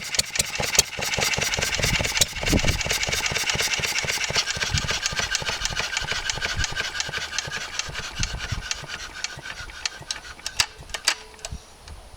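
1954 Wolseley WD8 single-cylinder stationary engine running, its firing beats slowing and fading as it is shut down. It coasts to a stop near the end.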